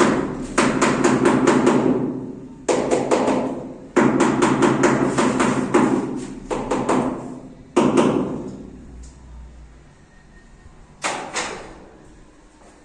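Hammer tapping in quick runs of several knocks a second, each run ringing on a little. The runs stop about eight seconds in, and two single knocks follow near the end.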